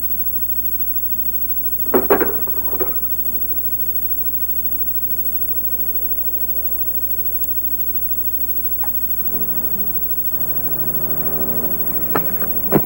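Rifle shots from a staged firefight on an old film soundtrack: a quick cluster of three sharp reports about two seconds in, then more shots near the end as a volley begins, over a steady tape hiss and hum. A short held low tone sounds about a second before the last shots.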